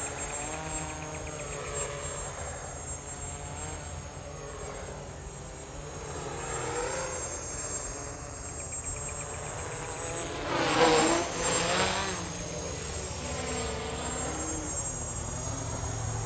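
Small quadcopter's brushless motors and propellers buzzing in flight, the pitch of the several motor tones rising and falling as the throttle changes through turns. It gets louder about eleven seconds in.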